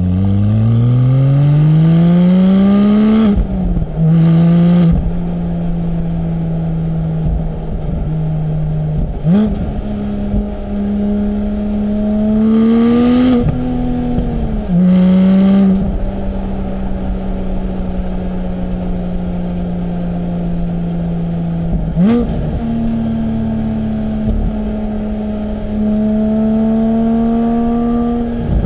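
Porsche 718 Spyder's naturally aspirated 4.0-litre flat-six with sports exhaust, pulling through the gears. The revs climb steadily at the start and again before the middle, each climb ending in a sudden drop as it shifts up. Between the climbs there are short sharp rev blips and long stretches of steady cruising, with a few brief patches of loud rushing noise over the engine.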